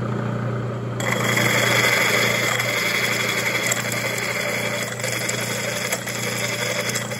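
Flat-belt drill press running with a steady hum. About a second in, the twist drill starts cutting into hot-rolled steel plate, lubricated with lard cutting oil, and a steady grinding cutting noise takes over.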